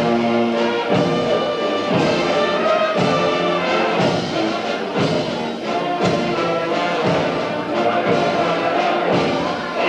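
Amateur wind band, led by brass, playing a piece at a steady beat, with a strong accent about once a second.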